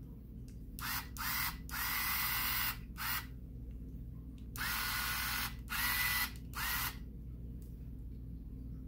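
Handheld cordless electric screwdriver fitted with a thin drill bit, run in a series of short bursts, its motor whine rising quickly to a steady pitch at the start of each burst.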